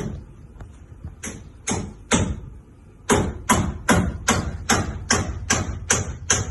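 Hammer striking a wooden boat hull's planking, nailing it to a freshly steamed oak rib held from inside: a few separate blows, then a steady run of about two and a half blows a second from about three seconds in.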